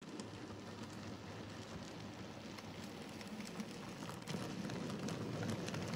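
N gauge model train, a Class 47 diesel hauling coaches, running along the track: a steady faint rumble and rattle of the small wheels on the rails, with light clicks.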